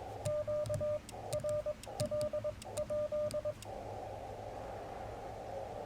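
Morse code sidetone from a Yaesu FT-891 transceiver, a single steady beep keyed in four quick groups of dots and dashes, with the light clicks of the paddle key under each element; this is the QRL? check that the frequency is clear before calling CQ. Steady hiss from the radio's narrow CW receive filter runs underneath.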